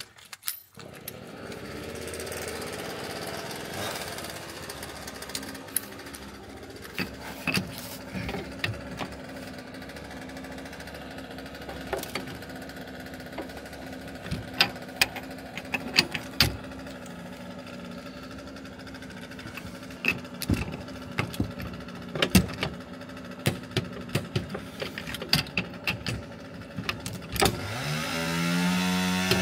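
Workshop work on a car's rear leaf spring: repeated sharp metal knocks and clicks over a steady machine hum. Near the end a power tool spins up with a quickly rising whine that then holds steady.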